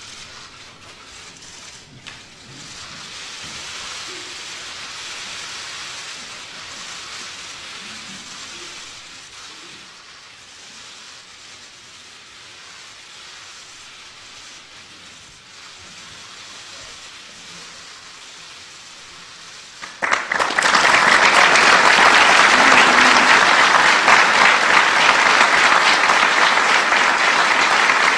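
For about twenty seconds there is only a soft, steady clicking and rustling. Then, about twenty seconds in, an audience suddenly breaks into loud applause that keeps going.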